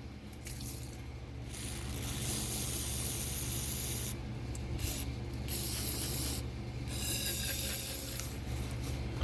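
Aerosol spray can hissing in several bursts, the longest about two and a half seconds, cleaning out a motorcycle throttle housing. A steady low hum runs underneath.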